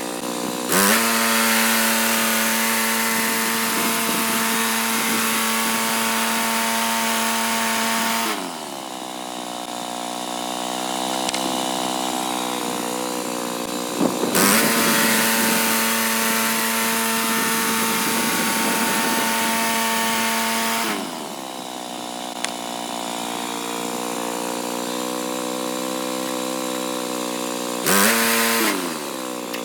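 Woodland Mills HM126 portable band sawmill's gas engine throttled up to full speed to drive the band blade, twice for about seven seconds each time, then once briefly near the end. Between these runs the engine pitch glides down and it idles more quietly.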